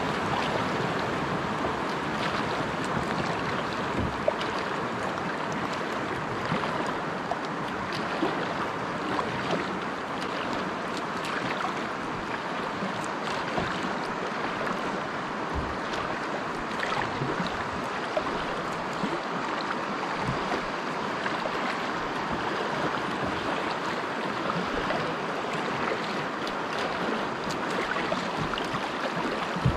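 Steady rush of water through a Class II river rapid, heard from a kayak, with occasional short sharp splashes or knocks against the hull.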